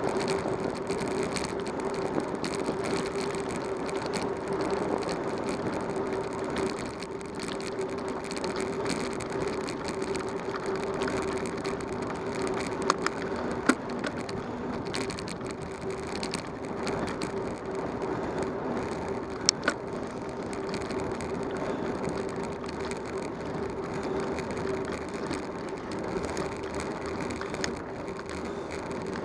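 Bicycle rolling along a paved road: steady tyre and wind noise with a constant hum. Two pairs of sharp clicks come, one about halfway through and one a few seconds later.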